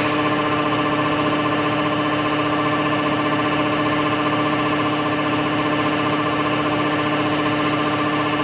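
A machine running with a steady hum that holds one even pitch.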